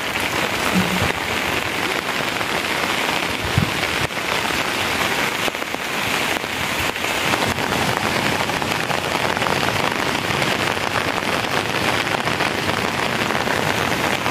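Steady rain falling: an even hiss of raindrops pattering on surfaces.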